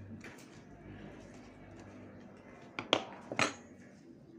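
Kitchen utensil handling at a wooden chopping board: faint small ticks, then two sharp knocks about half a second apart near the end as a kitchen knife and a plastic colander are picked up and handled.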